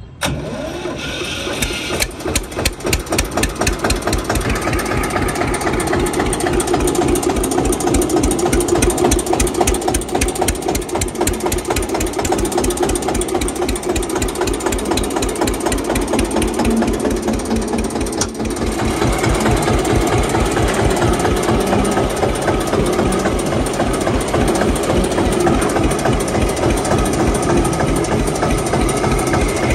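Eicher 485 tractor's diesel engine running steadily with even, rapid firing pulses. It gets a little louder over the first few seconds and dips briefly about two-thirds of the way through.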